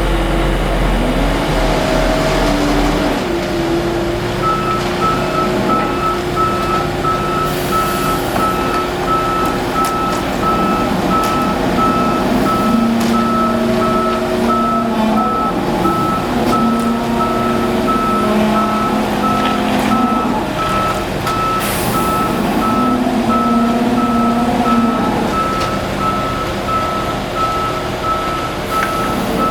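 Heavy truck engine running while its reversing alarm beeps steadily at one pitch, the beeping starting about four seconds in. Two short hisses come partway through.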